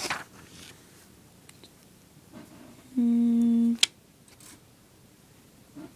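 A person humming a short, steady 'hmm' on one low note for under a second, about three seconds in, followed by a sharp click. A brief rustle of book pages at the very start.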